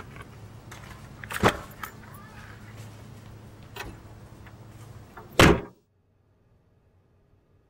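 Several knocks and thumps over a steady low hum. The loudest is a heavy bang about five and a half seconds in, after which the sound cuts to near silence.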